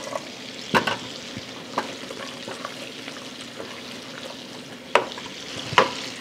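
Sea scallops sizzling steadily in foaming, browning butter in a frying pan, while a wooden spoon stirs risotto in a stainless steel pot. A few sharp knocks come about a second in and again near the end.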